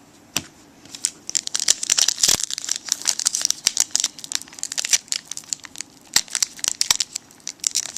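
Foil wrapper of a trading card pack crinkling and tearing as it is opened by hand: a dense run of crackles about one to three seconds in, then scattered crinkles.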